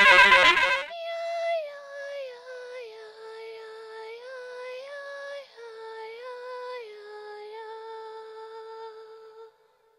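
A loud, harsh sound cuts off in the first second. Then a high voice sings a slow, wordless melody of held notes moving up and down in small steps, stopping shortly before the end.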